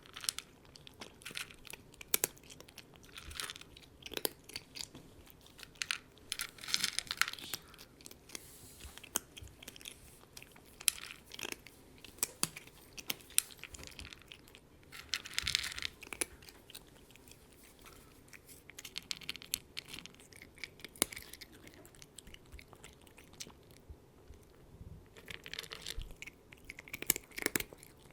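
Cat eating: irregular crunchy chewing with sharp bites and short clusters of crackly crunching, separated by brief pauses.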